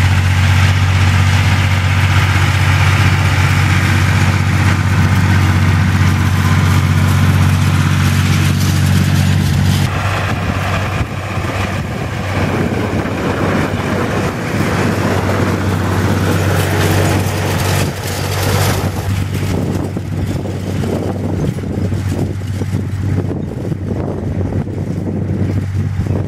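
Ursus C-360 3P tractor's four-cylinder diesel engine running steadily under load while pulling a hay rake. About ten seconds in, the even hum gives way to a rougher, noisier sound.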